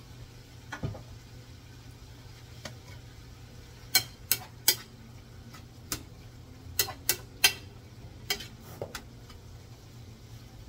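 A spoon knocking and scraping against a skillet while cabbage is stirred, in scattered sharp clicks: three close together about four seconds in and a quick run of them a few seconds later, over a faint low hum.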